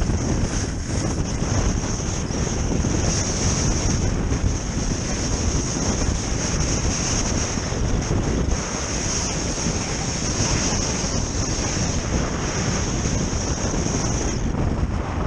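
Wind rushing over a body-mounted camera's microphone while travelling fast on skis behind a traction kite: a steady loud rumble and buffeting, with a constant high hiss over it.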